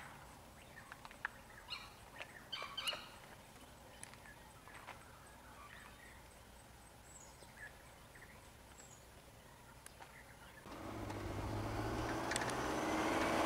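Quiet outdoor background with scattered small clicks and rustles and a few short bird chirps; about eleven seconds in, a minivan's engine and tyre noise comes in and grows steadily louder as it approaches.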